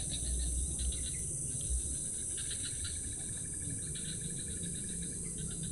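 Insects chirring: a steady high-pitched drone with rapid pulsed chirps layered over it, and a low rumble underneath.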